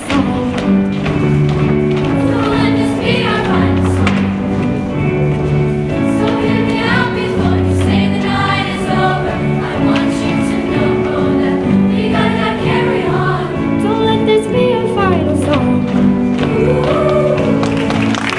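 Music: a choir singing with instrumental accompaniment, holding sustained chords.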